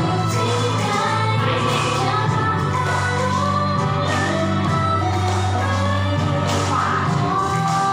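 Pop song playing, a voice singing over steady low bass notes.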